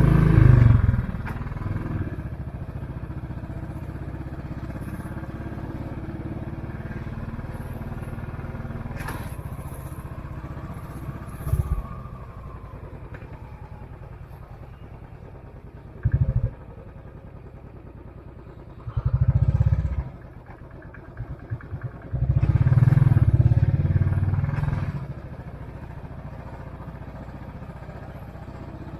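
Royal Enfield Classic 500's single-cylinder engine and exhaust running under way. The throttle opens louder near the start, briefly twice in the middle, and in two longer pulls in the later part.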